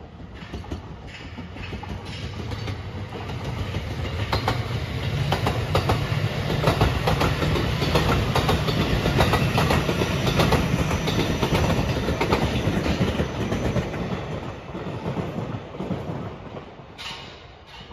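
Electric multiple-unit passenger train passing close by: wheels clicking over rail joints in a steady rhythm. It grows louder as it approaches, is loudest in the middle, and fades away near the end.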